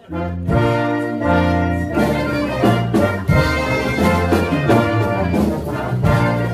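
Big band playing jazz: a full brass chord comes in abruptly, then trumpets and trombones play over a steady drum beat from about two seconds in.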